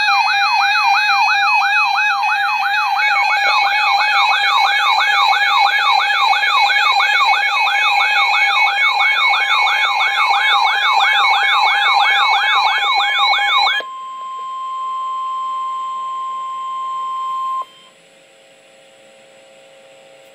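Layered electronic siren sounds: a loud siren yelping up and down about three times a second over steady high tones, cutting off suddenly about 14 seconds in. A single steady alert tone follows for about four seconds, the weather alert tone that comes before a National Weather Service warning.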